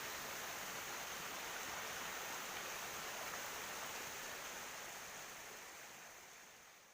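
Steady rush of a small waterfall and mountain stream, fading out over the last two seconds or so.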